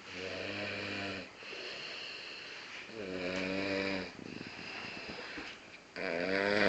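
A woman snoring loudly: three drawn-out, droning snores about three seconds apart, each lasting about a second, with softer breathing between them.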